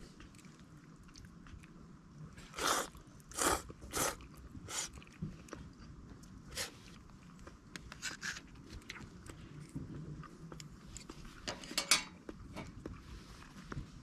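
A person biting and chewing crunchy food close to the microphone: a series of sharp, irregular crunches, the loudest about 3 and 12 seconds in.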